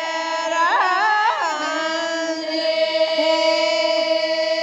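A woman singing a Rajasthani mayra folk song in a high voice: quick ornamented turns in the first second and a half, then one long held note.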